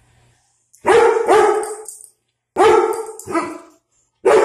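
German Shepherd barking loudly in pairs of sharp barks: territorial alert barking at a dog seen outside.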